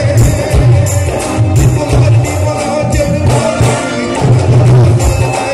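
Live band music amplified through a large PA system: a heavy bass beat repeating about twice a second with bright percussion strokes on top, and a male singer's voice over it.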